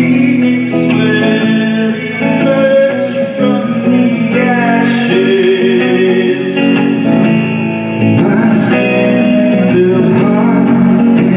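Live band song: plucked guitar with a singing voice, played at full level.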